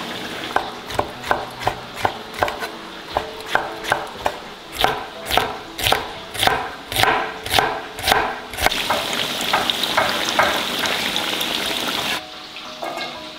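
Kitchen knife chopping green beans on a wooden cutting board, a steady run of knocks about three a second that grow louder partway through. About nine seconds in the chopping stops and the sizzle of tofu deep-frying in a wok of hot oil takes over.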